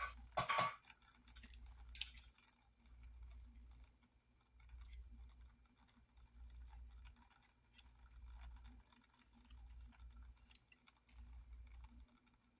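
Clicks and taps of a diecast toy car and its plastic packaging being handled. The loudest come in the first second and once at about two seconds, followed by faint scattered ticks and low rumbling handling noise.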